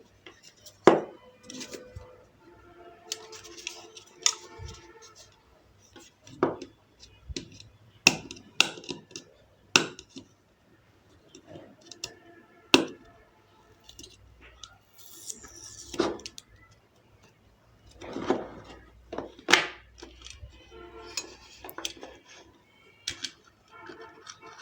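Background music overlaid by irregular sharp clicks and knocks of earphone packaging being handled and opened.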